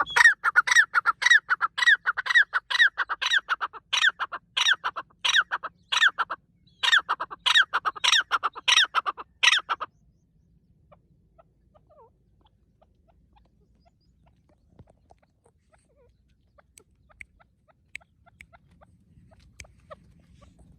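Grey francolin calling: a loud series of quickly repeated, ringing notes, roughly two to three a second, with a short break about six seconds in. The calling stops about ten seconds in, leaving only faint scattered clicks.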